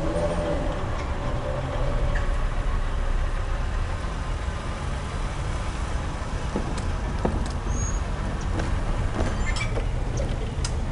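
Cars driving over the railroad crossing as the gates lift: a steady low rumble of road traffic, with several short clicks and knocks in the second half.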